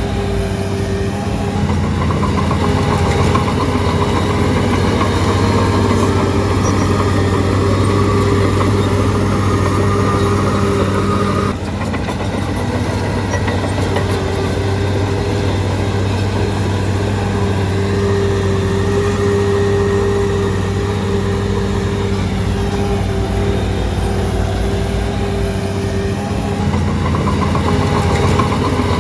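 Diesel engine of a Shantui DH17C3 bulldozer running steadily, with a brief dip in level about twelve seconds in.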